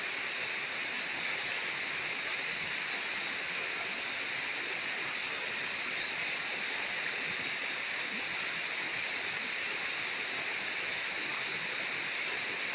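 Steady rush of running water from a hose and the wet rock channel as a sluice mat is rinsed out over a gold pan, even and unbroken throughout.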